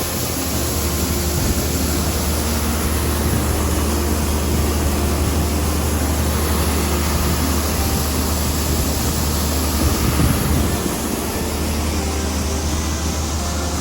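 Large farm machine's engine running steadily, a constant low drone with a noise haze over it.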